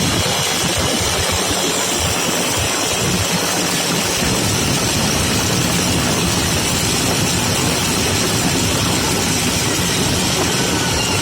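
A power tool running steadily and loudly, a continuous even mechanical noise with no breaks or changes in pitch.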